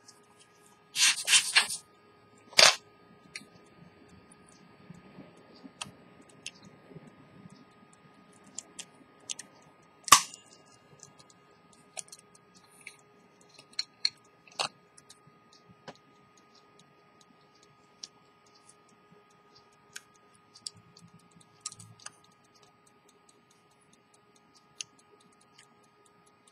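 Sharp metallic clicks and taps from handling an antique silver pocket watch case: a loud clatter about a second in, a sharp click just after, another near the middle, then faint scattered ticks.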